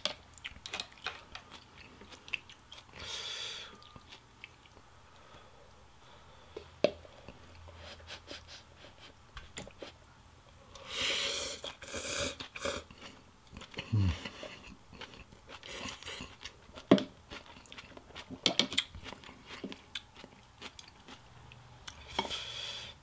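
Close-up eating sounds of pho: a person chewing, with scattered small wet clicks throughout. About halfway through comes a long, loud slurp of rice noodles, and there is a shorter slurp early on.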